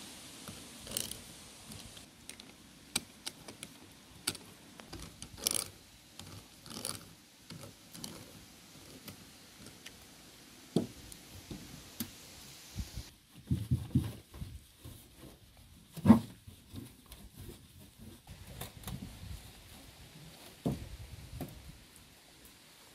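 Hand-cranked seaming tool turning a metal lid onto a glass jar, with scattered small metal clicks and scrapes. Past the middle come a few low knocks and one loud knock as the heavy jar is turned over and set down upside down on the table.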